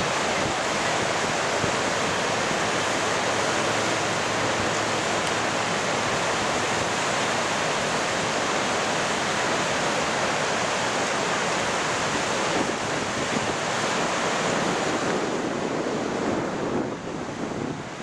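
Steady, loud roar of Niagara Falls' plunging water and spray, mixed with wind buffeting the microphone; near the end the roar thins and the wind comes in uneven gusts.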